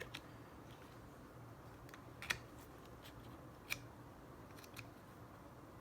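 A few faint, sharp plastic and metal clicks as a laptop RAM module is handled and pressed into its slot, the clearest about two seconds in and another over a second later.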